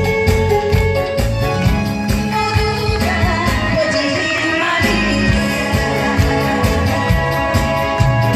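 A woman singing a Korean song live through the stage sound system over a backing track with a steady beat, with held notes.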